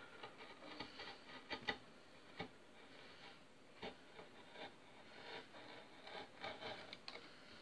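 Sharp wood chisel paring a small wooden plug, making faint, irregular short scraping strokes.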